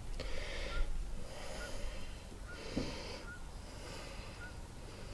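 A man breathing heavily through his nose close to the microphone, in soft hissing breaths about once a second. A faint short high chirp repeats about once a second in the background.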